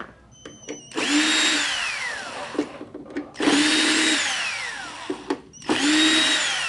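Cordless electric screwdriver running in three bursts of about two seconds each, backing screws out of a powered mixer's metal casing. Each burst ends in a falling whine as the motor winds down, and a few sharp clicks come just before the first.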